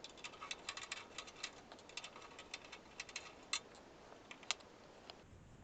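Faint, quick, light metallic clicks and ticks, several a second for about three and a half seconds, then two or three spaced ones: a small screwdriver taking out the screws that hold a graphics card's bracket in a PC case.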